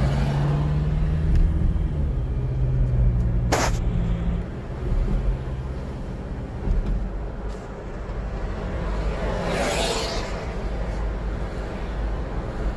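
Car running along the road, heard inside the cabin: low engine hum and tyre noise. The engine tone is steady for the first few seconds, then fades about four seconds in. A sharp click comes about three and a half seconds in, and a brief whoosh swells and passes near ten seconds.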